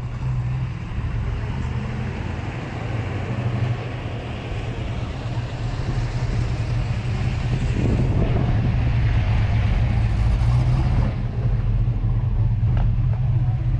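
A motor vehicle engine running with a steady low rumble, growing louder about eight seconds in.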